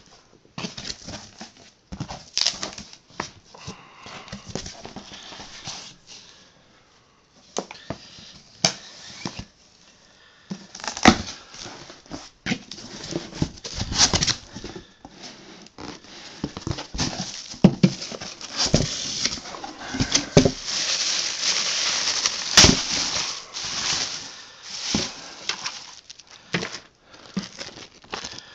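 A cardboard shipping box being cut open with a knife and unpacked: irregular scraping, tearing and rustling of tape, cardboard and packing material, with scattered knocks and clicks. The handling is busiest and loudest about twenty to twenty-five seconds in.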